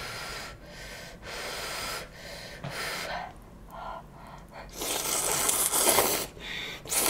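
Airy breath and mouth sounds of a person eating: a series of short, noisy puffs of air, the loudest and longest lasting over a second a little past the middle, with another short one at the end.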